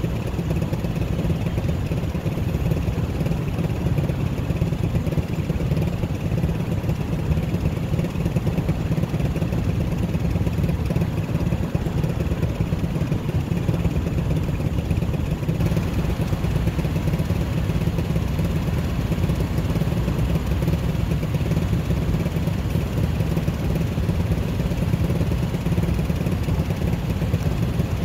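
Honda Click 125i scooter's single-cylinder engine running with a steady low rumble, mixed with even ride noise.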